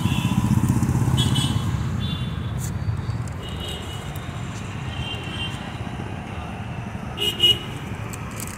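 Road traffic: a low rumble of passing vehicles that eases over the first few seconds, with several short vehicle horn toots, the loudest about seven seconds in.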